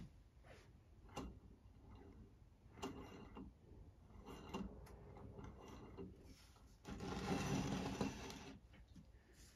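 Faint handling noises from a small cast-iron model steam engine on a plywood board: scattered light clicks and knocks, then about seven seconds in a scraping that lasts about a second and a half as the engine's base is slid and turned on the wood.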